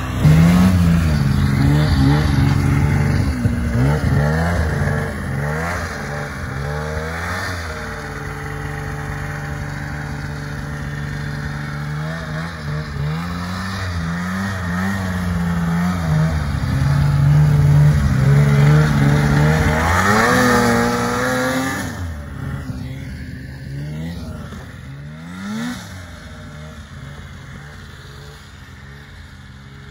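Snowmobile engine revving hard and accelerating as it is ridden through deep snow, its pitch climbing and falling over and over. It is quieter after about 22 seconds.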